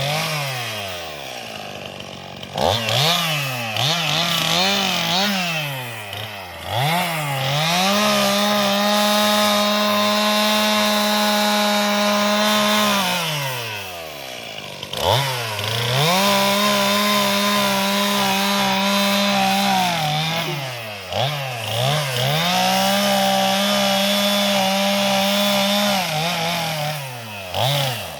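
Chainsaw revving up and held at full throttle through long cuts in felled tree limbs, about three sustained cuts of several seconds each, dropping back to idle between them with short blips of the throttle.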